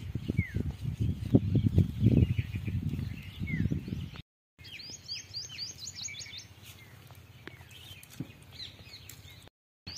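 Close crackling and rustling from camachile (Manila tamarind) pods being handled and shelled for about the first four seconds, with birds chirping. After a cut, the handling fades and a bird gives a quick run of high chirps.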